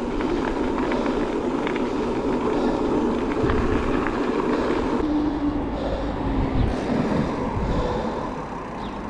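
Steady riding noise from an electric mountain bike on a road: tyres rolling and wind on the microphone, with low rumbling gusts in the middle.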